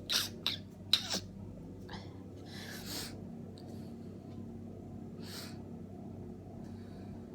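A person with a head cold sneezing three times in quick, sharp succession in the first second and a half, then breathing heavily twice.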